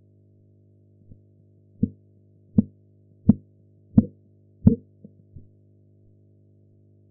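Korotkoff sounds heard through a stethoscope as the blood pressure cuff deflates: short tapping beats about 0.7 s apart. The first faint tap about a second in marks the systolic pressure; five loud beats follow, then two fading ones near the end before the sounds vanish, which marks the diastolic pressure. A steady low hum runs underneath.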